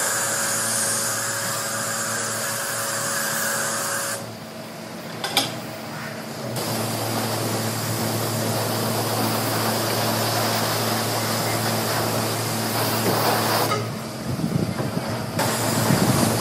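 High-pressure washer lance at a self-service wash bay spraying water onto a bicycle: a steady hiss of spray over a low pump hum. The spray stops twice for a second or two, about four and fourteen seconds in, with a single sharp click during the first pause.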